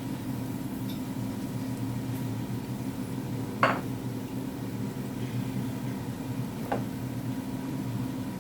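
A cooking utensil knocks against the pan twice, a sharp clink about three and a half seconds in and a softer one near seven seconds, over a steady low hum.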